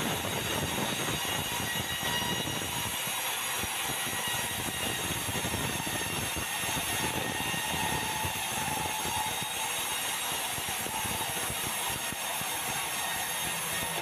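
Sawmill band saw cutting lengthwise through a red meranti log as the carriage feeds it past the blade: a steady mechanical din with faint high tones running through it.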